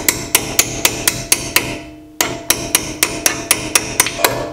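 Hammer tapping a tight pad-retaining pin into the front four-piston brake caliper of a Chevy Colorado, metal on metal, about four light strikes a second with a short break just under two seconds in.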